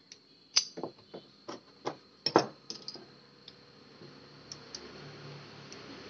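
Small metal clicks and taps from handling a BMX seat clamp and its bolt with a hex tool: about ten irregular clicks in the first three seconds, then quiet.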